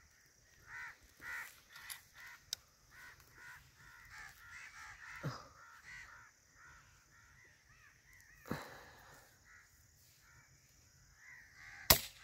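Many birds calling in short, rapidly repeated calls over a steady high hiss. A single sharp crack near the end is the loudest sound.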